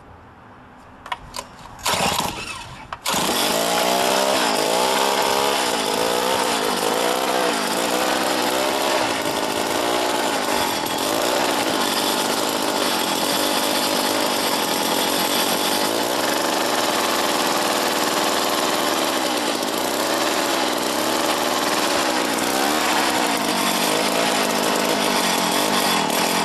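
Two-stroke 3 hp Tecumseh engine of a two-man post hole auger starting up: two brief sputters, then it catches about three seconds in and runs, its speed rising and falling.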